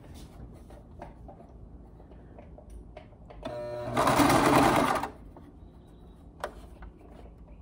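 Home electric sewing machine stitching one short run of about a second and a half, starting about three and a half seconds in with the motor's whine rising, then the needle running fast. It is sewing a zigzag stitch to catch an elastic strap into the seam. A single sharp click comes near the end.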